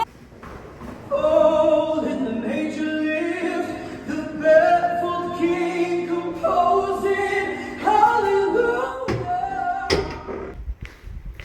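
Singing over music, with sustained sung notes that bend in pitch. It drops away briefly near the end.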